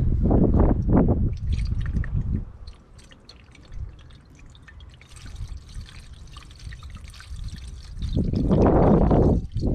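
Antifreeze poured from a plastic jug into a car's coolant reservoir, trickling and splashing into the filler neck. Louder low rumbling noise comes at the start and again near the end.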